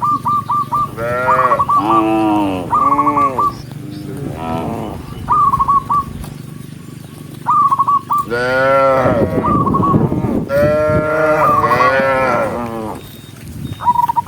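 Several cattle mooing, their calls overlapping and bending up and down in pitch, busiest about two-thirds of the way through. A short, high, wavering chirp recurs between the moos.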